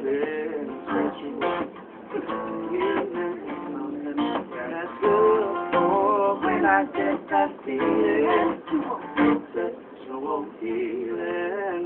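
Acoustic guitar strummed in a live song, with a man singing along.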